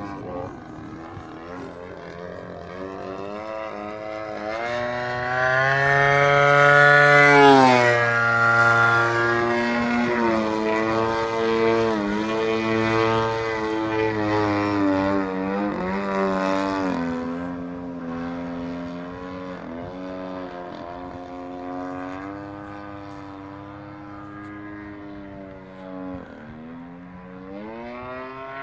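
Desert Aircraft DA-60 single-cylinder two-stroke gas engine on its stock muffler, swinging a 24x9 carbon propeller on an 87-inch Extra 300 RC aerobatic plane in flight, its revs rising and falling with the throttle. It is loudest about six to eight seconds in, then its pitch slides down. The revs dip again briefly near the end and climb back.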